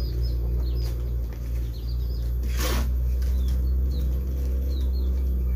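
Small birds chirping in short, repeated calls over a steady low hum, with one short burst of noise about two and a half seconds in.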